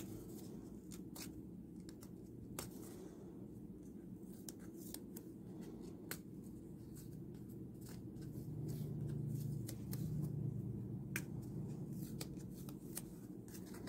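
Hands handling a paper envelope, photocards and their plastic sleeves: light rustling with many scattered small clicks and taps, over a steady low hum that swells a little in the middle.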